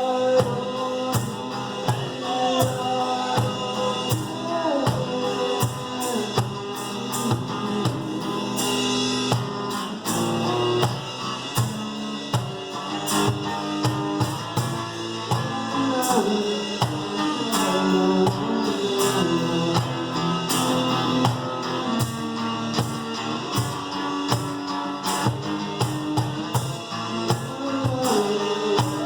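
Live acoustic rock music from a two-piece band: acoustic guitar with a steady beat of drum and percussion hits.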